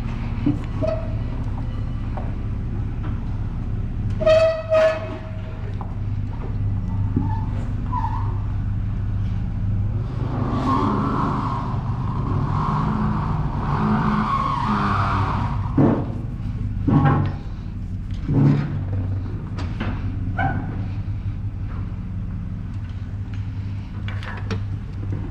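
A car engine running steadily, then revved under load for several seconds in the middle as it strains to tow a tractor, then easing back. The tractor does not move because its front wheels are turned. Two short high tones come about four seconds in, and a few sharp knocks follow later.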